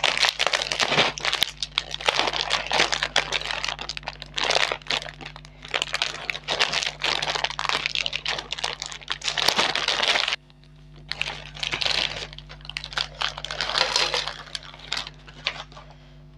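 Plastic-foil snack packets, a Lay's chips bag among them, crinkled and torn open by hand in dense crackling. About ten seconds in the crackling cuts off suddenly, and after that comes softer packet rustling.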